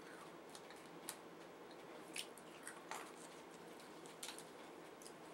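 Near silence with a handful of faint short clicks and light handling noises: fingers picking at a tiny DIY candy hamburger on a plate, working the cheese layer loose.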